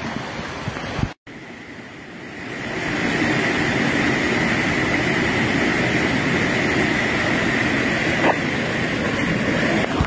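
Rushing water of a mountain stream and a small waterfall pouring into a plunge pool, a steady rush. It breaks off briefly about a second in, then grows louder around three seconds in and holds.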